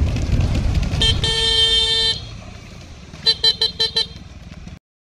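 Motorcycle riding noise, engine and wind, that quietens about two seconds in. Over it a single-tone horn sounds for about a second, then gives five quick short toots near the end. The sound cuts off abruptly.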